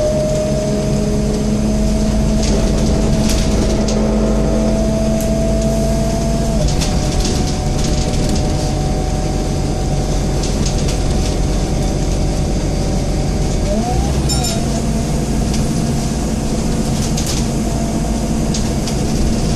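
Scania N230UD double-decker bus under way, heard on the upper deck: a steady engine hum with a drivetrain whine that changes pitch about a third of the way in and again about two-thirds in, as the bus changes speed or gear. Short clicks and rattles from the bodywork and fittings come and go throughout.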